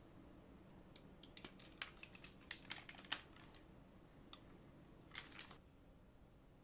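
Light clicks and taps of hands handling a boxed collectible figure and its plastic packaging. A cluster of quick clicks comes about a second in, and a few more come near the end.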